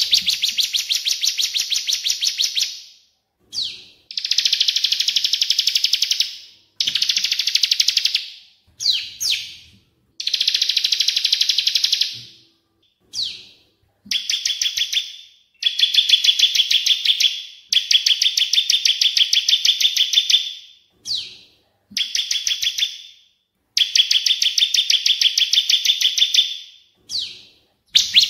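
Recorded song of a ciblek (bar-winged prinia) and a cililin (crested jay): bouts of rapid, evenly repeated high notes, about seven or eight a second, each bout lasting two to three seconds with short pauses between, and a few short sweeping notes between the bouts.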